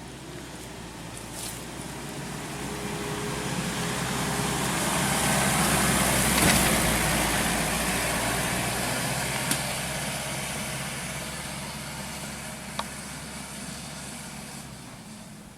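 An SUV drives past: its engine runs at steady revs, and engine and tyre noise rise to a peak about six seconds in, then fade away. Two sharp clicks come later in the pass.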